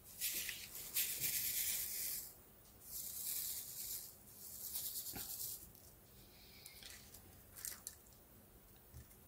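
Resin diamond-painting drills rattling in a plastic drill tray as it is shaken, in three bursts of about a second each, followed by a few faint ticks.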